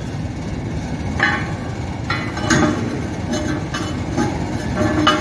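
Steel bar clanking and scraping against heavy-wall steel pipe as it is worked through freshly torched holes, several ringing metal-on-metal clanks about a second apart over steady background noise.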